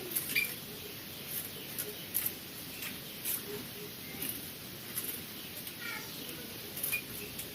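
Birds chirping: scattered short, high chirps, with a quick run of falling notes about six seconds in.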